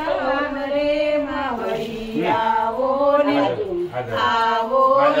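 Women singing a Gujarati devotional song together, holding long drawn-out notes that rise and fall in pitch.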